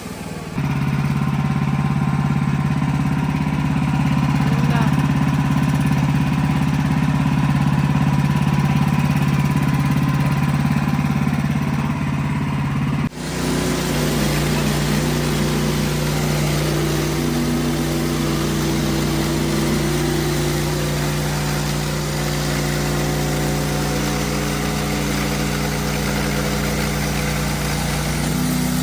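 Engine of a Wood-Mizer LX55 portable band sawmill running steadily through a slab cut. About halfway through its tone changes abruptly, then it runs on steadily.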